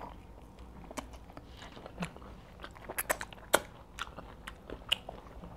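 Close-miked chewing and mouth smacking while eating fufu and meat in native soup by hand: scattered soft wet smacks and clicks, the loudest about three and a half seconds in.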